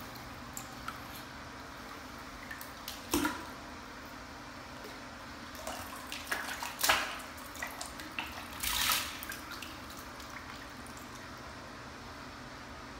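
Bathwater splashing and sloshing as an American mink swims and scrambles in a tub, in short bursts about three seconds in, around six to seven seconds and again near nine seconds, over a steady low hum.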